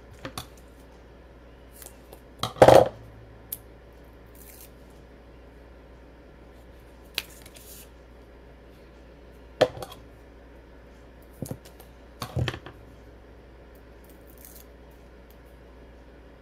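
Scissors snipping strips of foam tape, a handful of short separate cuts and clicks a few seconds apart. The loudest comes about three seconds in.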